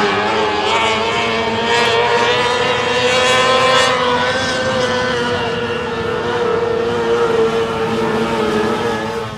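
Speedway race car engines running hard at high revs, the pitch holding fairly steady with slight rises and falls; the sound cuts off abruptly near the end.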